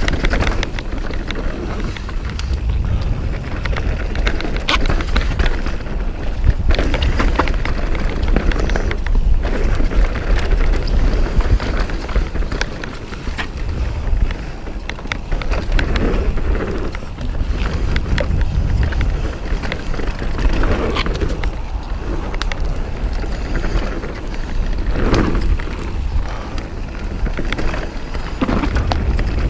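Mountain bike descending a rough dirt trail at speed: wind buffeting the microphone under a constant rumble of tyres on dirt, with frequent clicks and rattles from the bike over bumps and roots.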